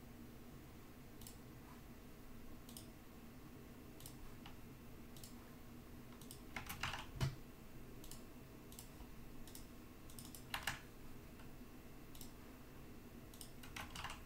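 Faint computer keyboard typing: scattered keystrokes and clicks, with a short run of several about seven seconds in and another just before the end, over a faint steady hum.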